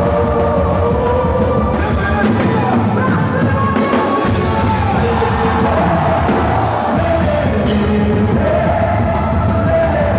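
Loud music with a steady beat and a singing voice.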